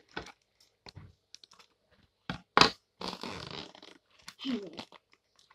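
Hands handling Play-Doh tubs and plastic packaging on a table: scattered light taps and knocks, two sharper knocks about two and a half seconds in, then a short rustle of crinkling plastic.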